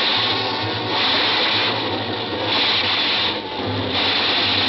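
Radio-drama sound effect of a subway train running: a steady rattling rumble with regular surges about once a second.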